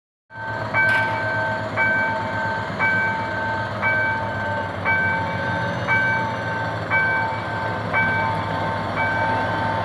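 Level-crossing warning bell ringing about once a second, a bright three-note chime on each strike. Under it is the low steady hum of a GM GT-22CW diesel locomotive pulling a passenger train towards the crossing.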